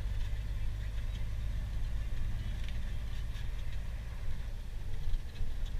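Scania truck's engine and drivetrain heard from inside the cab: a steady low rumble with a few faint light ticks and rattles.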